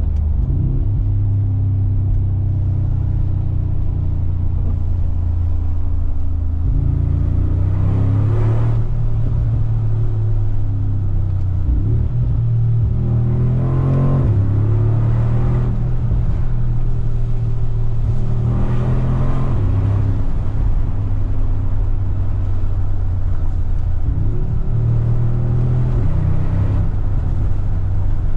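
2019 Mercedes-AMG G63's 4.0-litre twin-turbo V8 running under way, a steady deep engine note whose pitch steps up and down several times as the load and revs change.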